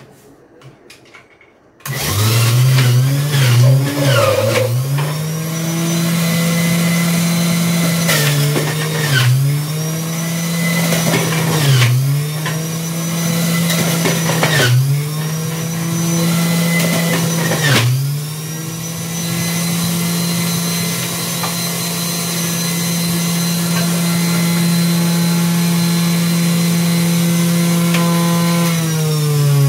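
Philips centrifugal juicer motor starting about two seconds in and running, its pitch dipping briefly about five times as pieces of beetroot, carrot, apple and pear are pushed down the feed chute and load it. After that it runs steady, then winds down with a falling pitch near the end as it is switched off.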